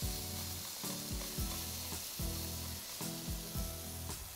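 Marinated beef steaks sizzling in hot oil in a ridged grill pan, a steady frying hiss, with background music underneath.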